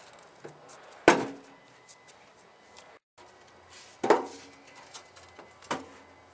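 Metal wheelbarrow clanking against a concrete driveway as it is tipped up and set back down: three loud bangs, the first about a second in, each with a short metallic ring.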